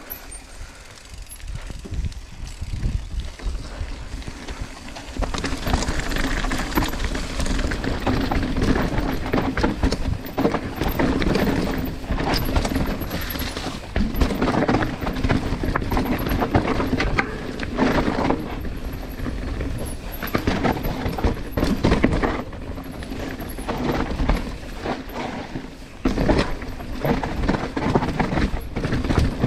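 Mountain bike riding fast down a rough dirt trail: tyres rumbling over dirt and roots with a constant clatter of knocks and rattles from the bike. Quieter for the first few seconds, then louder and rougher from about five seconds in.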